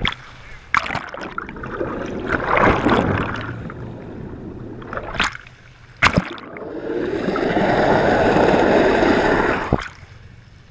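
Seawater gurgling and splashing over a small camera riding at the ocean surface as it dips under and breaks out of the waves. Sharp splash hits come about a second in and around five and six seconds in, then a long rushing wash, the loudest part, cuts off suddenly near the end.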